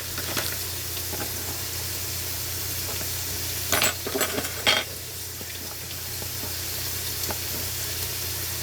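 Chicken frying in a pan, sizzling steadily, with a few short utensil clatters about four seconds in.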